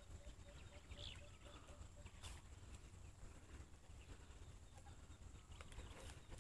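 Near silence: a faint low rumble of wind on the microphone, with a faint, rapid run of short repeated notes in the first two seconds and a few soft clicks.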